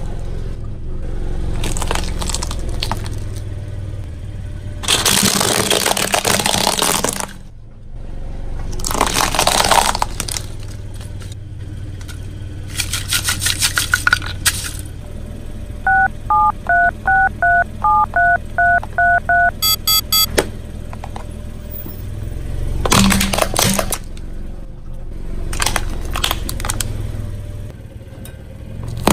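Car tyre rolling over and crushing objects on concrete: several bursts of crackling crunches and snapping from pine cones and hard plastic toys breaking under the wheel. About halfway through comes a run of about ten short electronic beeps alternating between two pitches, like a toy phone's tones.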